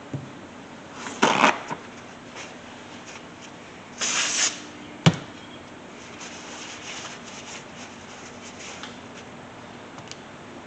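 Small handling noises while a brake caliper piston is cleaned by hand: a short rub about a second in, a brief hiss around four seconds, then a single sharp click.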